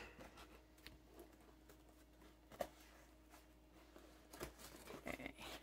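Near silence, with faint handling of a cardboard box on a table: a soft tick about two and a half seconds in, then a few quiet knocks and rubs near the end.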